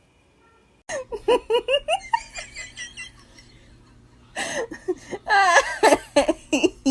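Laughter: a quick run of short rising giggles about a second in, then a louder, longer fit of laughing over the last two and a half seconds.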